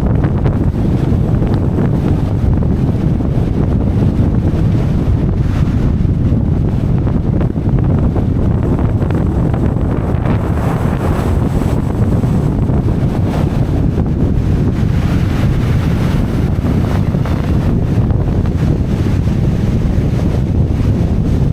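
Strong wind buffeting the microphone: a loud, steady low rumble with no letup.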